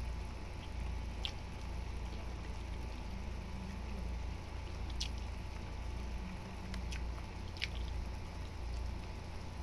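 Sauce simmering in a wok of cabbage, sausage and chicken, with a few scattered bubbles popping over a low steady rumble.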